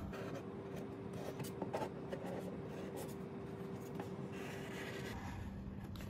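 Fine-point Sharpie marker drawing on a plastic milk jug: faint scratching strokes of the felt tip on the plastic. A faint steady hum runs underneath and stops about five seconds in.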